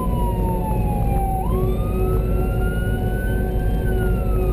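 Emergency vehicle siren in a slow wail: it slides down in pitch, sweeps back up about a second and a half in, climbs slowly, and starts falling again near the end. Under it runs the steady rumble of the vehicle driving at speed.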